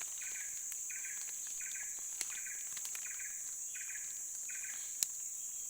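Insects calling: a steady high-pitched drone with a short chirp repeating about every 0.7 seconds. A sharp click sounds about five seconds in.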